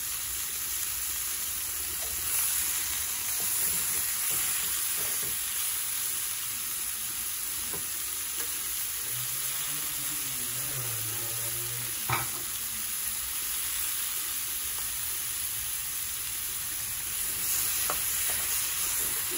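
Ground beef and pork sizzling steadily as it browns in hot oil in an aluminium pot, with one sharp click about twelve seconds in. Near the end a spatula stirs and scrapes the meat around the pot.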